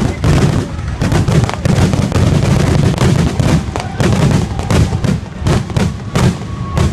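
Fireworks display: aerial shells bursting in rapid, overlapping bangs, several a second.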